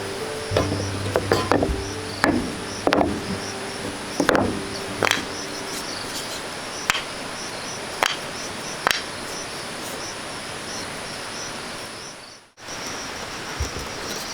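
Irregular sharp knocks of wood being struck, about nine over the first nine seconds, over a steady high insect chorus. The sound drops out briefly near the end.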